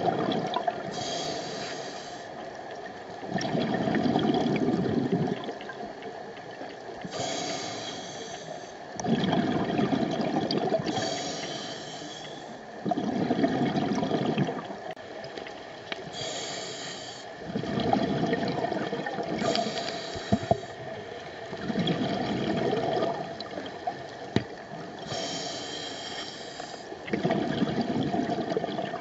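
A scuba diver breathing through a regulator underwater, about six breaths: each is a short hiss on the inhale, followed by about two seconds of bubbling on the exhale.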